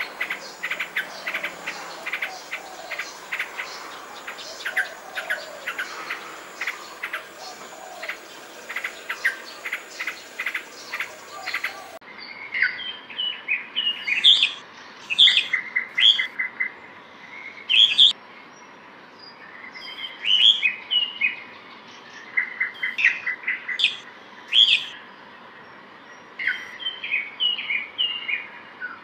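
For about the first twelve seconds, a dense run of rapid ticking like insects chirring, with scattered bird notes. Then a sudden change to a red-whiskered bulbul singing short, bright chirping phrases, some ending in a quick trill, repeated with brief pauses.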